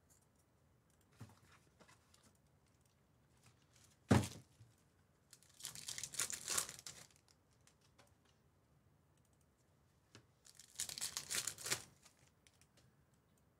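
Trading card pack wrappers being torn open and crinkled by hand, in two spells of crackling a few seconds apart, with a sharp knock about four seconds in.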